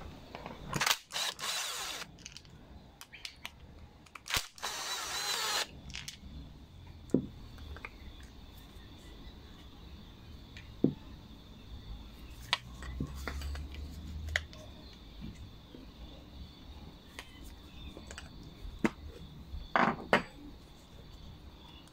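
Small powered screwdriver spinning out the two float-bowl screws of a Briggs & Stratton 500E plastic carburetor, in two short runs of about a second each. After that come scattered light clicks and knocks as the plastic bowl is worked off.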